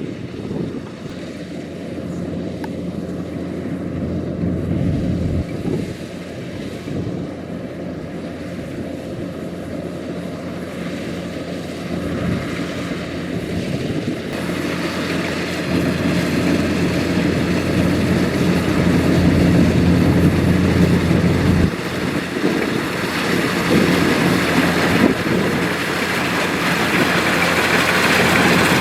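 Kubota DC-105X rice combine harvester running with a steady mechanical drone, growing louder and brighter from about halfway through.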